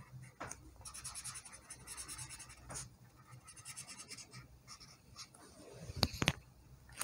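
Felt-tip marker scribbling quickly back and forth on paper, filling in missed spots of a coloured drawing. About six seconds in come two sharp clicks close together.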